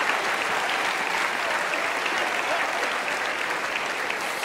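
Theatre audience applauding and laughing after a joke.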